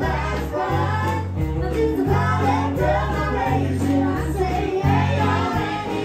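A woman singing a country song into a microphone, amplified, over instrumental backing with a prominent bass line.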